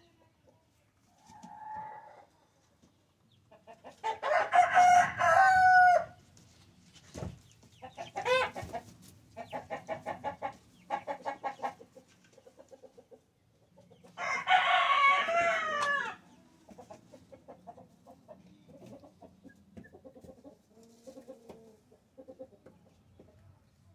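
Young chickens: a cockerel crows twice, about 4 and 14 seconds in, each crow about two seconds long and falling in pitch at the end. Between the crows come quick runs of clucking, and softer clucking follows the second crow.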